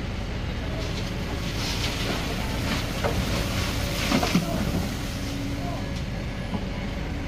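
Kobelco SK210 excavator's diesel engine running steadily under load. Between about one and a half and four and a half seconds in, a stretch of scraping and metal knocks, loudest around four seconds, as the bucket pushes a steel trench shoring box down into the trench.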